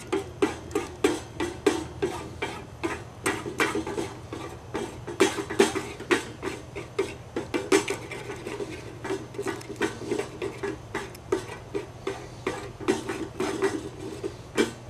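Plastic Light My Fire spork stirring and scraping scrambled eggs in a small stainless steel pot, with quick, uneven knocks against the metal two or three times a second.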